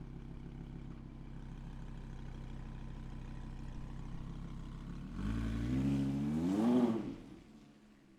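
Audi R8 engine idling steadily, then revving about five seconds in, the pitch rising and dipping before the sound drops away quickly near the end.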